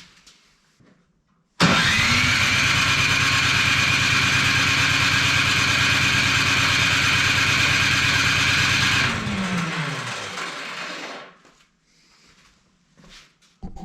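Cub Cadet 1X snow blower's electric starter cranking the engine for about seven seconds, then winding down with a falling pitch as it is released. The engine does not catch on the stale, months-old gas.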